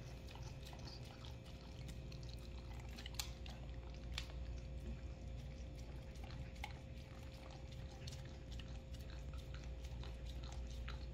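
Two huskies licking soft food off silicone lick mats: faint, irregular wet licking and smacking clicks, a couple a little louder about three and four seconds in.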